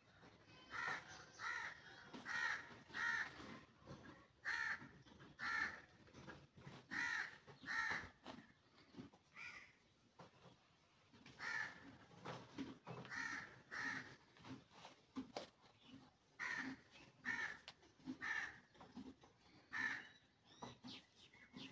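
A bird calling over and over outside, about eighteen short calls in loose runs of two to four with brief pauses between.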